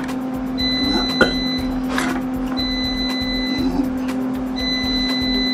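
A steady low electrical hum, with a high tone that sounds for about a second, stops for about a second and repeats. A knife clicks against the plate a couple of times as the steak is cut.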